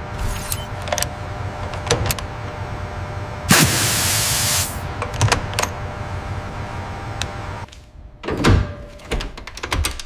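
Mechanical sound effects: scattered metallic clicks and clacks, then a loud hiss of air lasting about a second, about three and a half seconds in. Near the end come sliding whirs and thuds.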